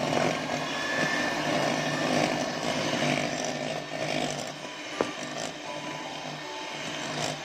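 Electric hand mixer running steadily, its twin wire beaters whisking oil and powdered sugar into a cream in a bowl, with one sharp click about five seconds in.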